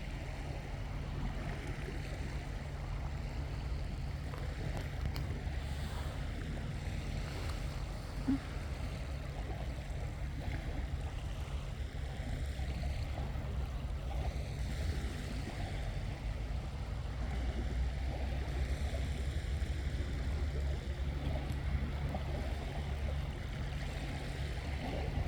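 Sea waves washing onto a beach, with a steady low wind rumble on the microphone. A brief short tone stands out about eight seconds in.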